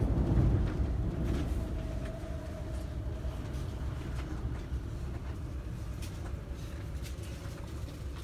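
Airport railroad train heard from inside the car: a low running rumble that fades steadily, with a faint motor whine sliding slowly down in pitch, as the train slows to stop at the station.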